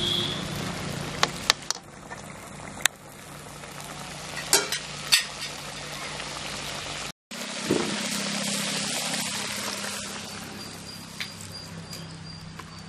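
Fish curry simmering and sizzling in an aluminium pot, with a few sharp clinks of a metal slotted spoon against the pot in the first seconds.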